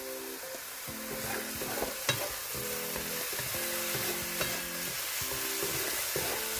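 Diced chicken and onion sizzling in an electric wok, stirred with a wooden spatula that scrapes the pan, with a few sharp clicks against the wok.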